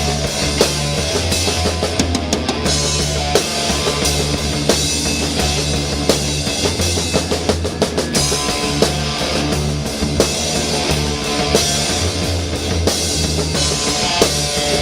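Rock music: a drum kit beating steadily, with bass drum and snare hits, over held bass notes that shift pitch every second or two.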